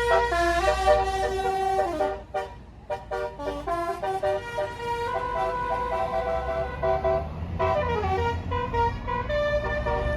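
A bus's 'basuri' musical air horn playing a tune, quick short notes first and then longer held notes, over the low rumble of the bus's engine.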